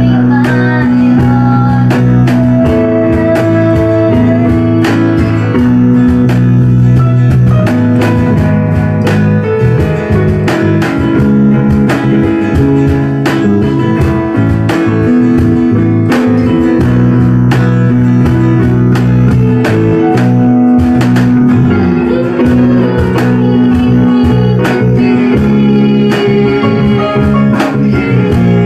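A small live band playing a song: acoustic and electric guitars with keyboard, and a cajon tapping out the beat.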